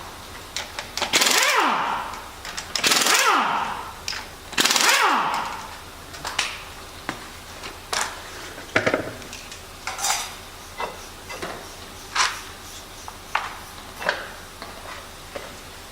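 Pneumatic impact wrench run in three short bursts about two seconds apart, each winding down in a falling whine, followed by a string of sharp metallic clinks about once a second as tools and parts are handled.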